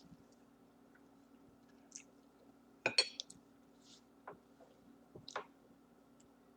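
Eating spaghetti: a few sharp clinks of a utensil against a dish, the loudest a short clatter about three seconds in, among quieter wet mouth and chewing sounds.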